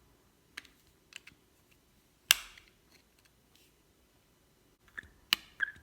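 Small sharp clicks and knocks of a tool and small metal carburettor parts being handled during reassembly: a few faint ticks, one loud clack a little over two seconds in, and a quick run of clicks near the end.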